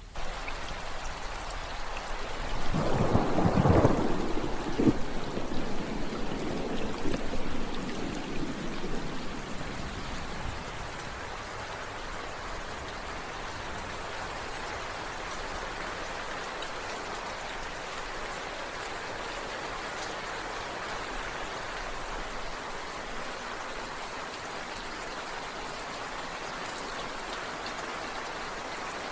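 Steady rain falling, with a roll of thunder that breaks about three seconds in and rumbles away over several seconds before the rain goes on alone.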